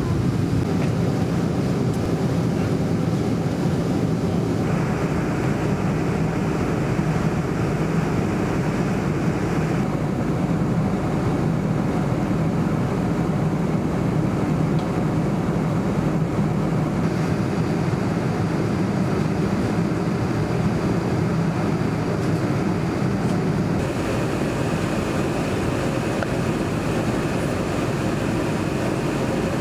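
Steady rumble of a Boeing 747's jet engines and rushing air as heard from the passenger cabin. Its tone changes abruptly a few times.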